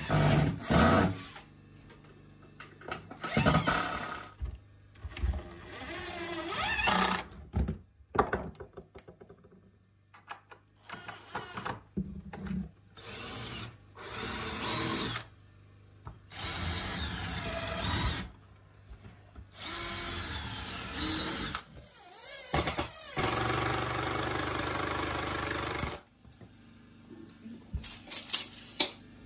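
DeWalt cordless drill driving screws into pallet-wood framing, in about seven separate runs of one to three seconds each. Loud knocks come in the first second, and a few light clicks near the end.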